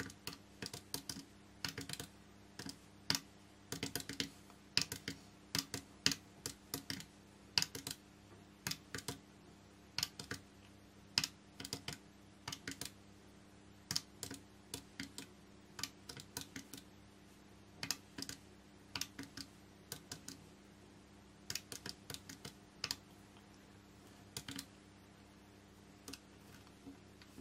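Keys of a Casio MX-8 desktop calculator being pressed one after another in quick, irregular succession, a short plastic click with each press as figures are entered, over a faint steady hum. The tapping stops a couple of seconds before the end.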